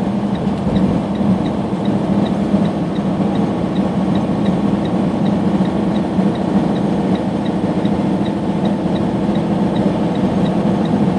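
Semi truck driving down a mountain grade, heard inside the cab: the engine and road noise make a steady drone with a low hum. A faint, rapid, regular ticking runs over it.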